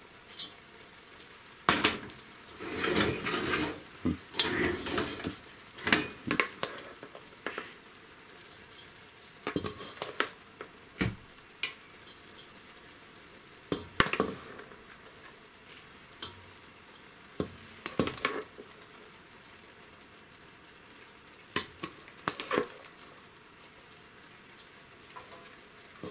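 A spoon scraping and tapping against a stainless-steel bowl as boiled basmati rice is scooped out and spread over the pot in layers for a biryani. The strokes come in scattered clusters, busiest in the first few seconds, with quieter stretches in between.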